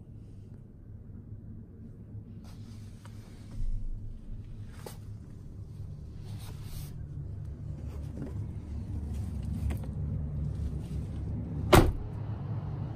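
Low steady hum with intermittent rustling and scraping from handheld filming, and one sharp knock about a second before the end.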